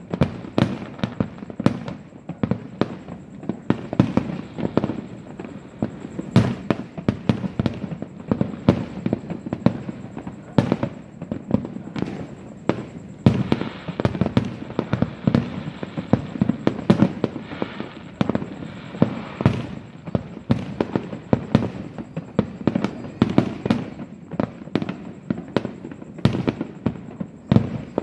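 Fireworks bursting continuously, a dense run of sharp bangs, several a second. A patch of crackling sparkle joins them about halfway through.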